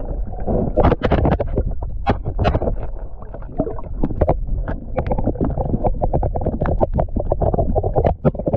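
Muffled underwater rumble and water noise with a dense run of irregular knocks and clicks, as heard through an underwater camera beneath the ice while a hooked trout is fought close to it.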